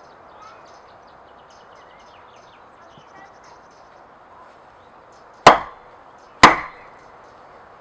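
Two sharp, loud hammer strikes about a second apart, each dying away quickly, over faint birdsong.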